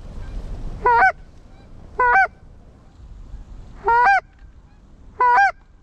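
Canada goose call blown by a hunter: four loud two-note honks, one to two seconds apart, calling to an approaching Canada goose.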